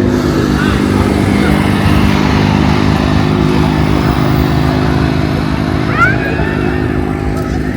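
An engine running steadily at an even pitch, with a few faint high chirps over it.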